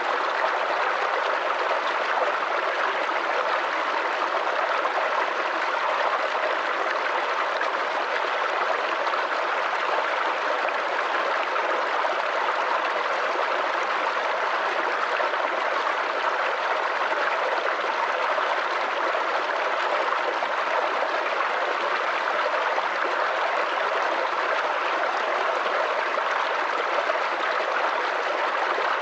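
Shallow creek babbling and gurgling over stones, a steady, unbroken rush of running water.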